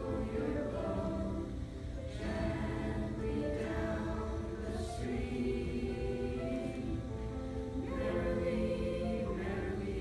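A mixed choir of teenage boys and girls singing together in parts, in long held notes, with a brief dip about two seconds in.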